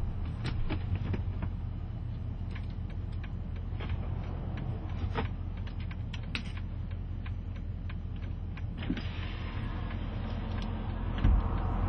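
Car engine idling with a steady low hum, with scattered light clicks and rattles over it. A rushing noise builds from about nine seconds in, and there is a single thump near the end.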